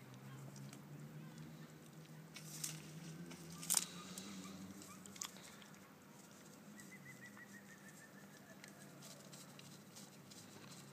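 Donkey chewing dry tobacco plants, with crunching and rustling of the brittle stalks and a few sharp snaps as it tears them. The loudest snap comes about four seconds in.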